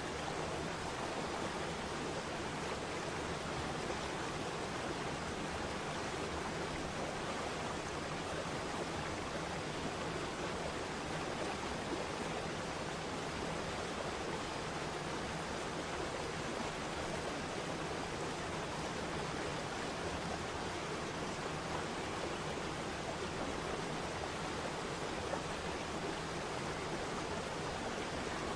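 Steady rushing of a waterfall: falling water making an even, unbroken roar with no changes.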